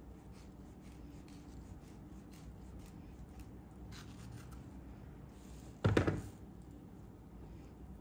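Light rubbing and scratching sounds of small objects being handled, with one louder thump about six seconds in.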